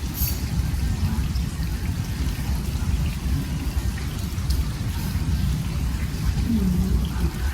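Wind buffeting the microphone outdoors by the sea, a steady low rumble with a faint hiss of water and sea noise above it.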